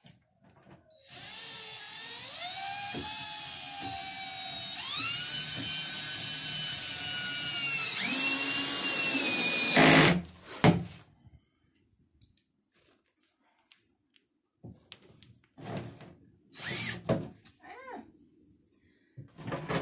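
Cordless drill driving screws into a particleboard panel: the motor whine climbs in pitch in steps over about nine seconds, then stops abruptly. A few short, quieter sounds follow in the second half.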